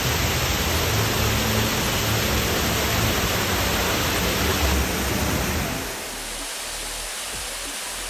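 Water pouring down a man-made rock waterfall, a steady rushing hiss that turns softer and thinner about six seconds in.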